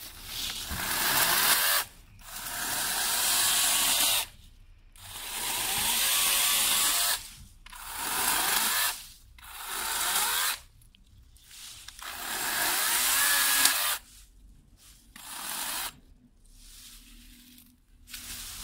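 Florabest 40 V battery chainsaw's electric motor and chain running in about eight short bursts of one to two seconds, winding up at the start of each and stopping between, as it cuts up branches.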